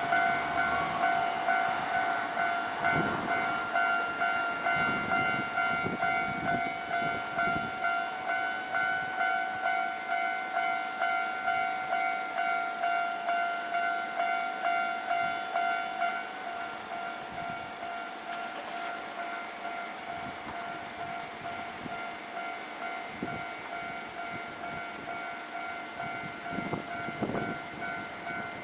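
Railway level-crossing warning bell ringing in an even, repeating ding. About halfway through, the louder bell tone stops and a fainter ringing carries on.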